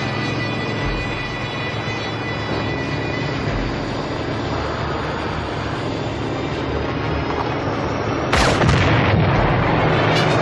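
Piston-engine Spitfire fighter running in flight with a steady engine drone. A sudden loud burst cuts in about eight seconds in, and the louder level holds after it.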